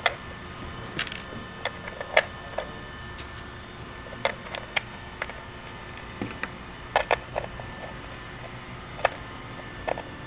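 Irregular light clicks and taps of small metal cleat bolts and washers being picked up off the bench and set against a plastic Shimano SPD-SL road cleat on a cycling shoe's sole, about a dozen in all.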